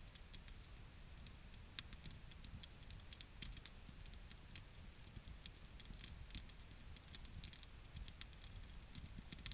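Small wood fire crackling faintly, with irregular sharp pops and snaps over a low rumble.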